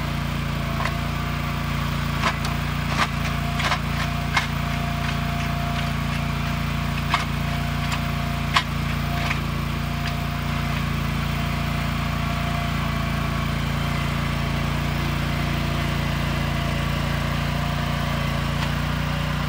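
Toro compact tracked utility loader's engine running steadily under load as its hydraulic auger grinds into hard ground, with sharp knocks and clicks from the auger bit striking the hard soil, mostly in the first half. The auger is struggling to cut the hard ground.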